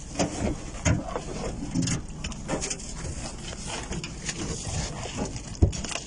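Irregular knocks and thumps with rustling as plastic-wrapped sacks are hauled out of a compartment under a bus floor and the floor panel is handled. The loudest thump comes near the end.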